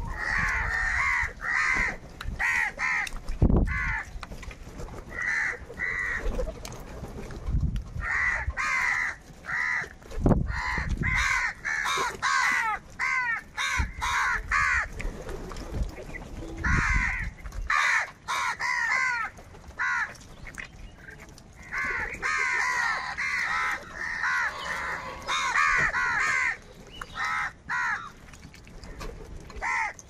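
A flock of house crows cawing, many calls overlapping in bouts of several caws with short gaps between. A few low thumps stand out, the loudest about three and a half and ten seconds in.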